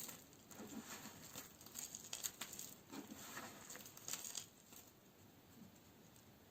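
A blade cutting through dry coniferous soap: a sharp click, then a run of short crisp crackles and scrapes as the brittle soap gives way, dying away about four and a half seconds in.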